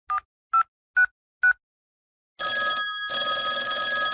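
Phone keypad tones as a number is dialled: four short two-note beeps, about two a second. Then, about a second later, a telephone starts ringing in repeated rings.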